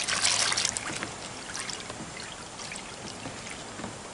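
Water sloshing and splashing in a plastic tub of degreaser solution as a greasy smoker drip pan is pushed under and worked about by a gloved hand. The splashing is loudest in the first second, then settles into quieter trickles and drips.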